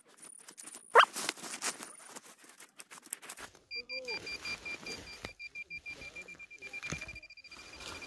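A handheld metal-detecting pinpointer sounds a rapid, steady pulsing beep from about halfway through, signalling metal close to the probe. Under it run scraping and clicking from digging in soil, and about a second in there is a short, loud rising squeak.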